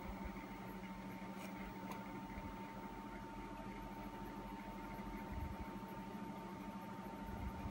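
Steady room hiss with a constant electrical hum and a thin high whine. Under it is the faint scratch of a mechanical pencil's graphite hatching on paper.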